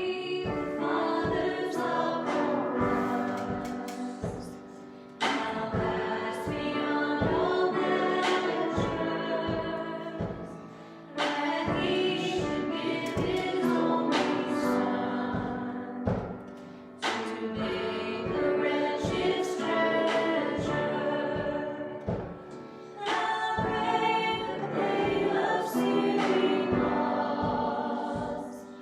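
Worship music: a group of singers with a band, sung phrases over sustained chords with drum hits, each phrase starting afresh about every six seconds.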